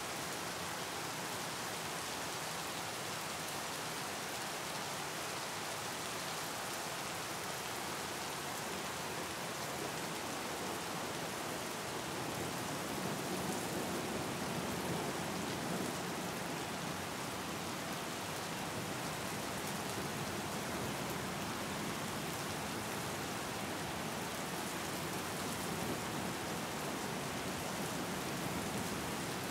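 Steady rain falling, an even hiss of many drops, with a fuller, deeper rush coming in about twelve seconds in.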